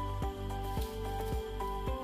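Background music: a melody of held notes over a steady beat of just under two beats a second.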